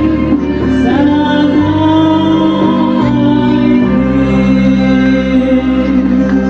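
A woman singing into a microphone over instrumental accompaniment, amplified through loudspeakers, holding long sustained notes.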